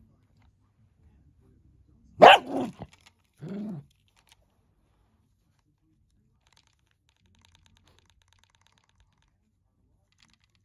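A small dog barks once, loudly and sharply, about two seconds in, then gives a shorter, lower bark about a second later: a warning while it guards its toy.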